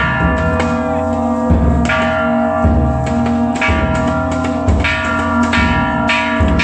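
Metal bells struck again and again at an irregular pace, each stroke sharp and the tones overlapping and ringing on, over a heavy low rumble.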